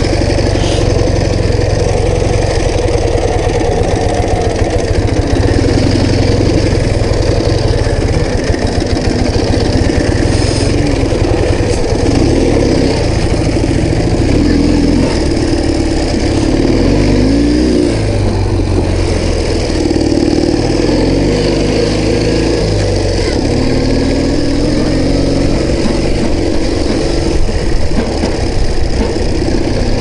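Ural Tourist sidecar motorcycle's flat-twin four-stroke engine running under way over a rough dirt track, with the revs rising and falling a few times in the middle stretch. Wind buffets the microphone throughout.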